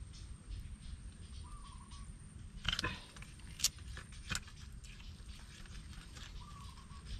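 Sharp clicks and knocks of a crab hook probing among rocks in a crevice: a quick cluster about two and a half seconds in, then two single clicks under a second apart, over a steady low rumble of handling noise.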